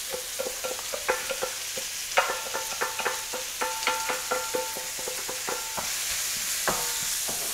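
Chopped green onion, bell peppers and garlic sizzling steadily in hot chili oil in a stainless wok, while a wooden spatula scrapes and taps them out of a stainless steel bowl, making quick ringing metal clinks, thickest in the middle.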